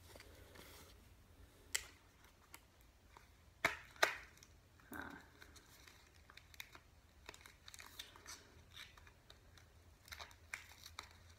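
A small paperboard box being handled and opened by hand: scattered soft clicks, taps and a short rustle of the cardboard, with a few sharper clicks about two, three and a half and four seconds in and a run of small ticks near the end.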